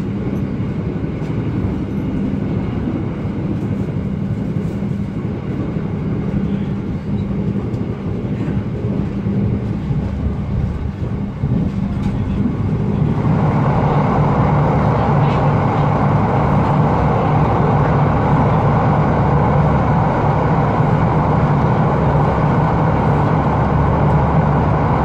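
Argo Wilis passenger train running at speed, heard from inside the coach: a steady rumble and rush of wheels on rail. About halfway through, the train enters a tunnel and the noise turns suddenly louder and hissier.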